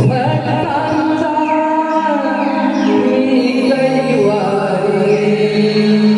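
Marathi devotional folk song in Naman style: voices singing a drawn-out melody over a sustained musical accompaniment.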